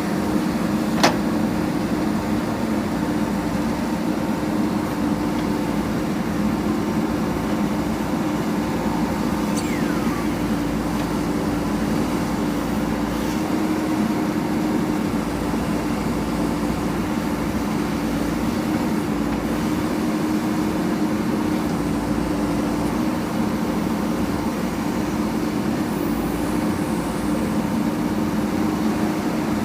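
JCB 3DX backhoe loader's diesel engine running at a steady speed while working, with one sharp click about a second in.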